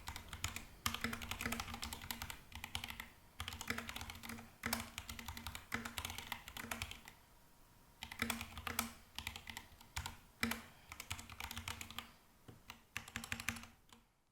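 Typing on an Epomaker GK68XS mechanical keyboard fitted with Gateron Black switches: rapid runs of keystrokes clacking, with a brief pause about halfway through, then tapering off near the end.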